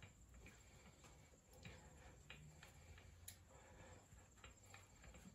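Faint, irregular metallic clicks, about nine, from a small hex-bit wrench being turned to back out the screw that holds a TPMS sensor to the valve stem inside the tire.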